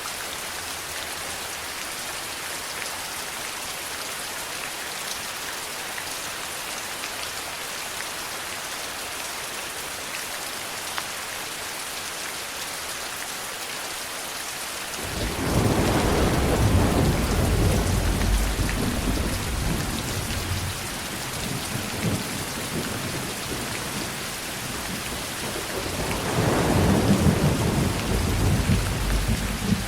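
Steady heavy rain hissing, with a long roll of thunder breaking in about halfway through and rumbling for several seconds. A second thunder roll swells near the end.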